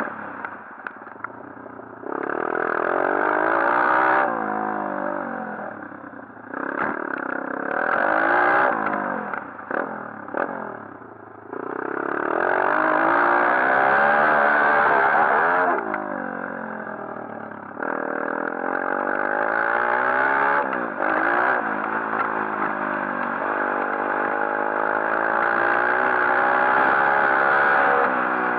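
A 140cc pit bike's single-cylinder engine being ridden hard. Its pitch repeatedly climbs under throttle and drops away, with the throttle chopped and reopened several times, around 4, 7, 11, 16 and 18 seconds in.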